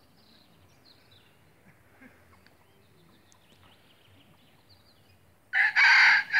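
Faint bird chirps over quiet outdoor ambience, then about five and a half seconds in a rooster starts crowing loudly, a harsh, rough opening to its call.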